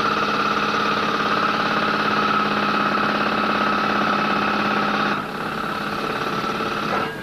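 Coal-mine machinery running with a steady whine over a rapid flutter. The lower part of the sound drops away about five seconds in, and the rest stops suddenly near the end.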